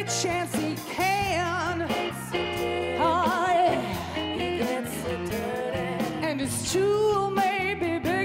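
A woman singing a blues song into a microphone with strong vibrato, over instrumental accompaniment with a steady bass line.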